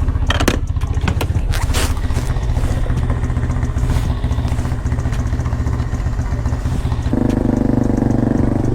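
Off-road motorcycle or quad engine idling steadily, with a few clattering knocks in the first two seconds. About seven seconds in, a second, higher engine note starts and holds.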